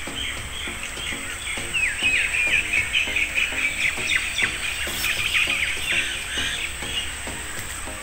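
Small birds chirping in a rapid string of short, falling notes, busiest and loudest through the middle, over background music with a steady pulse of low notes.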